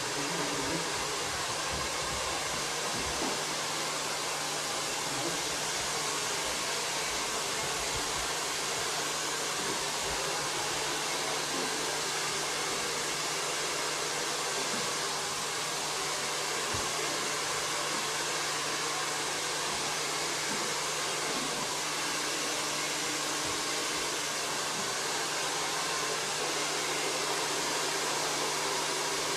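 Hair dryer blowing steadily, a constant rushing whoosh with a low steady hum underneath.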